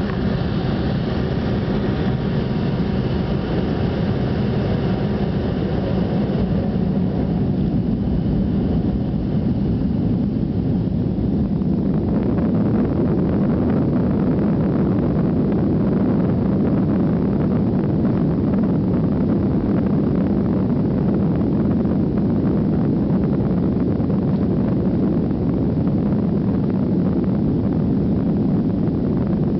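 Avro RJ100 airliner's four turbofan engines running, a loud steady rumble. A set of high whining tones sits over it for the first seven seconds or so, then fades, leaving the low rumble.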